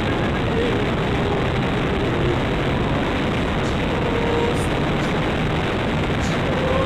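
Loud, steady wind rush on the onboard microphone of an RC plane in flight, over the drone of its electric motor and propeller.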